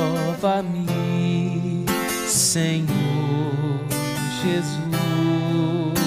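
Viola caipira, the ten-string Brazilian folk guitar, plucked and strummed in an instrumental passage of a hymn. A held, wavering melody line rises above the strings at times.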